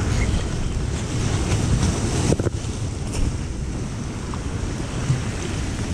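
Wind buffeting the microphone over surf washing against the jetty rocks, with a short knock about two and a half seconds in.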